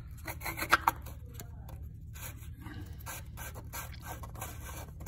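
Fingers scraping and clicking a small plastic cap into place over the drain valve of a Volkswagen oil filter housing cap: a run of short scrapes with a few sharp clicks just under a second in, over a steady low hum.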